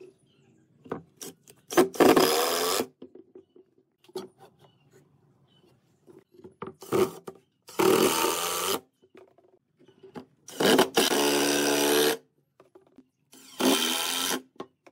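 Cordless impact driver driving screws into wood, running in four bursts of about a second each with short trigger blips between them.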